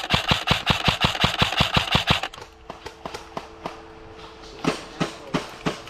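Airsoft gun firing a full-auto burst of about nine shots a second, cutting off about two seconds in, followed by scattered single shots. A steady low hum runs underneath.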